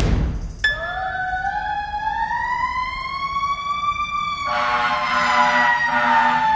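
Fire truck siren in a slow wail: it starts under a second in, climbs steadily to its highest pitch about four seconds in, then slowly falls. A steady horn blast joins it for the last two seconds.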